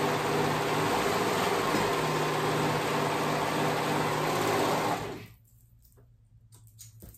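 Serger (overlock machine) running steadily at speed while stitching a seam, then stopping abruptly about five seconds in; a few faint clicks follow.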